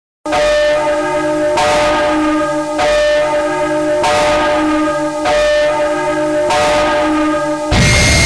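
A deep bell tolling at one pitch, six strokes about a second and a quarter apart, each ringing on until the next. Near the end, loud harsh noise music cuts in suddenly over it.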